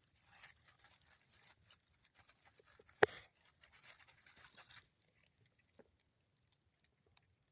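Faint crackling and rustling of dry leaf litter being handled at close range, with one sharp snap about three seconds in; it stops about five seconds in.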